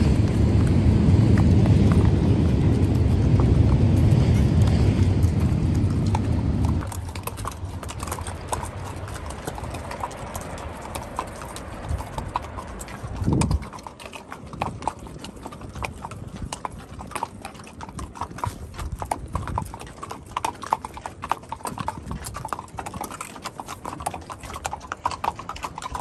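Shod horses' hooves clip-clopping in a busy, irregular patter of clicks. For the first several seconds a loud low rumble from a passing train covers them, then stops suddenly.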